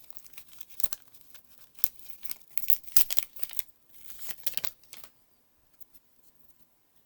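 Plastic booster pack wrapper being torn and crinkled open by hand, a run of crackling rips that stops about five seconds in.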